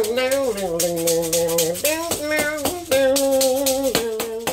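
Maraca shaken in a steady rhythm over a wordless blues melody of long, bending held notes.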